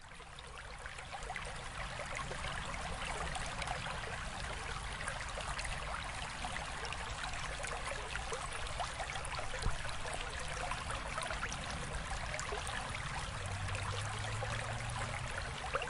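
Stream water flowing and babbling steadily, fading in over the first couple of seconds.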